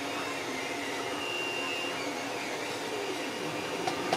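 Steady fan-like whirring of machinery running in the room, with faint shifting tones, and a single click near the end.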